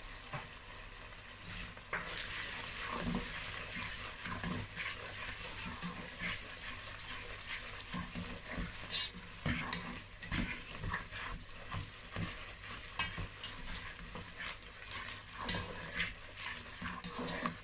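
Tomato and pepper sauce sizzling in a pot while a black slotted spatula stirs it, with a steady frying hiss and frequent short scrapes and taps of the spatula against the pan.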